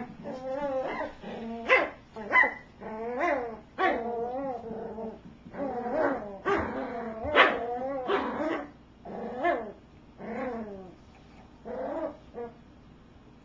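Cairn terrier puppies play-growling, yipping and whining in a tug-of-war over a toy: a run of short, wavering, high-pitched calls, one after another, that die away about twelve seconds in.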